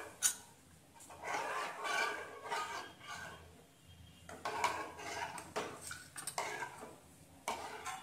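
Steel spatula scraping and stirring a yogurt gravy in a non-stick frying pan, in irregular strokes with a few sharper clinks against the pan. The curd is kept stirred without a break so it does not split.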